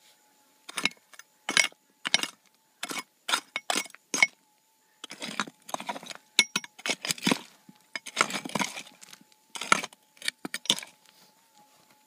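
Prospector's hand pick striking and scraping rocky ground: a string of sharp clinking blows on stone, with longer scraping strokes through gravel about five and eight seconds in.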